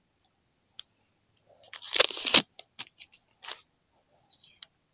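An S&S aftermarket camshaft being handled in its packaging: a brief metallic rattle and scrape about two seconds in, followed by a few light clicks.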